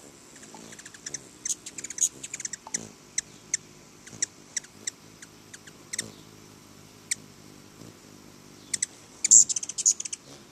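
Hummingbirds giving sharp, high chip notes: quick chattering runs about a second in and again near the end, with single chips in between.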